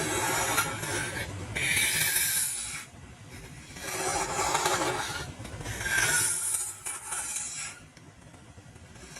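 Wood being scraped in four strokes of one to two seconds each, with short pauses between.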